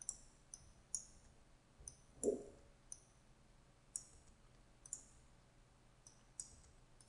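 Faint computer mouse button clicks, single clicks at irregular gaps of about half a second to a second and a half, as on-screen blocks are picked up and dropped. A soft, low thump comes a little over two seconds in.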